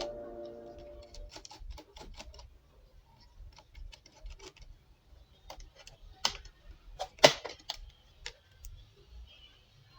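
Laptop keyboard keys tapped in an irregular run of sharp clicks, the loudest about seven seconds in. A fading music tone dies away in the first second.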